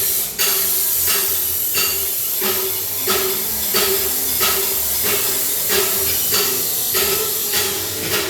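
Welding on stainless steel pipe: a steady hiss from the arc, with a regular pulse about three times every two seconds.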